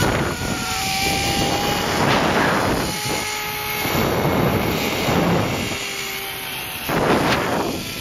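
Zipline trolley running along the steel cable, with wind rushing over the microphone in swells and a faint steady whine.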